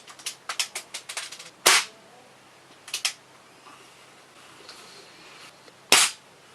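Gas airsoft pistols firing single shots, each a sharp crack: one about two seconds in, a lighter one at three seconds and another near the end, after a quick run of light clicks at the start. The pistols' gas is running low, so the shots are weak.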